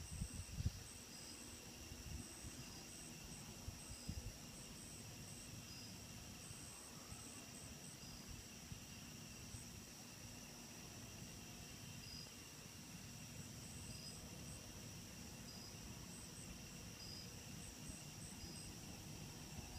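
Crickets and other night insects chirping faintly and steadily in several high pitches, some calling in short repeated pulses, over a faint low rumble.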